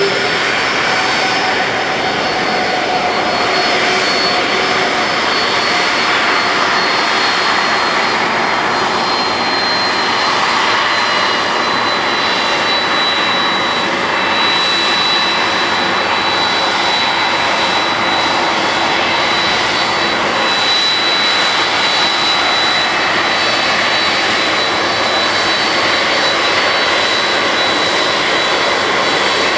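Boeing 767 jet engines running at taxi power as the airliner taxis close by: a steady rushing noise with a high, thin whine over it.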